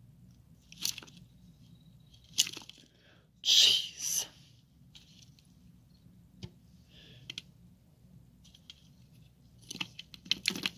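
Short crunchy scrapes and taps from long wooden tongs prodding inside a plastic cup of substrate. They come a second or two apart, the loudest about three and a half seconds in, with a quick run of clicks near the end.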